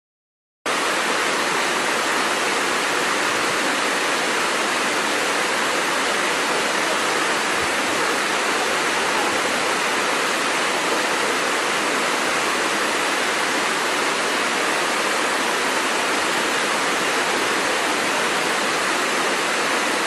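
Waterfall cascading over rocks: a steady, even rush of falling water that starts abruptly about a second in.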